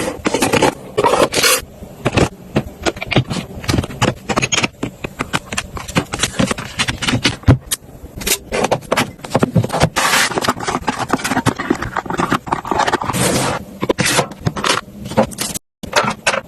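Household items being handled, set down and slid about: a dense run of clicks, taps, rattles and scrapes, broken by a moment of silence near the end.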